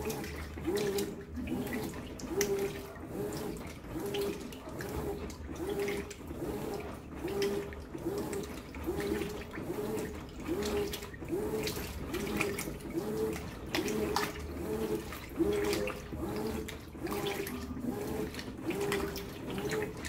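Brastemp BWK14 14 kg top-load washing machine agitating a load of jeans: the agitator motor hums and swishes back and forth in a steady rhythm of about two strokes a second, with water sloshing in the tub.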